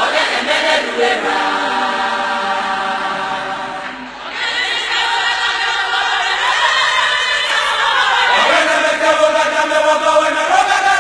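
Group of voices singing a gospel song together in long held notes, with a brief lull about four seconds in.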